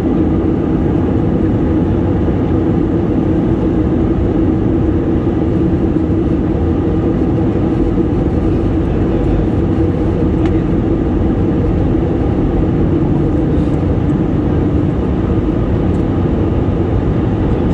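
Airplane noise during landing: a steady, loud rumble with a constant low hum.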